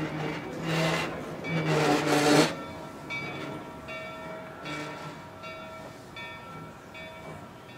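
Rio Grande Southern 41, a Baldwin 2-8-0 steam locomotive: loud hissing bursts for about the first two and a half seconds, then quieter, with a ringing note that repeats about every three-quarters of a second.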